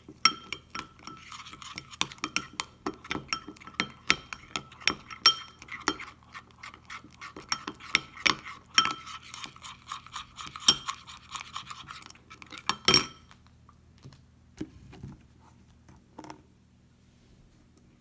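Metal spoon stirring a thick paste in a glass bowl, clinking and scraping quickly against the glass so that the bowl rings. The stirring stops about 13 seconds in, leaving only a few faint taps.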